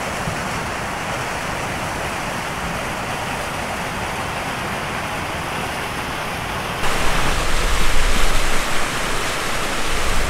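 Steady outdoor rushing noise that jumps louder and brighter about seven seconds in, with a low rumble added.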